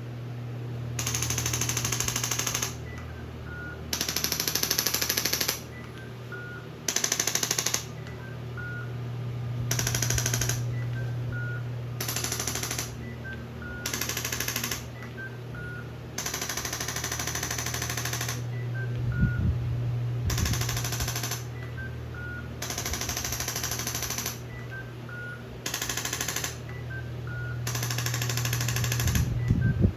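Handheld electric percussion massager buzzing in about ten bursts of one to two seconds, switched on and off against the body over a steady low hum.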